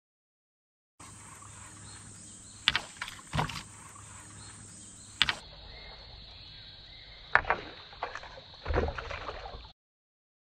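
Open-air ambience from a fishing boat, with several sharp knocks and clicks scattered through it, two of them heavier thuds.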